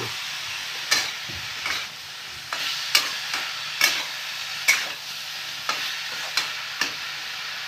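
A flat metal spatula scraping and knocking against a metal kadhai about once a second as chopped ridge gourd is stirred. Under it runs a steady sizzle of the vegetables frying.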